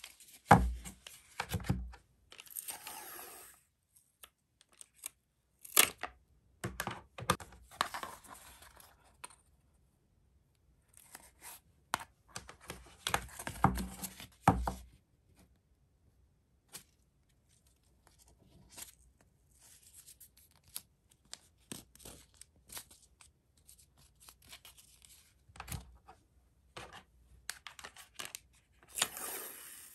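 Kraft cardboard and tape handled at close range: scattered knocks and scrapes of the cardboard pieces against the table, rustling, and the rip of tape being pulled off and torn, in short bursts with quiet gaps between.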